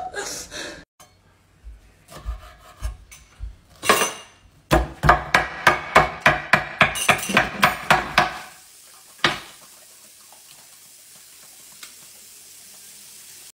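Kitchen knife chopping banana on a wooden cutting board: a run of quick, even knocks, about four a second, for several seconds, then a single knock.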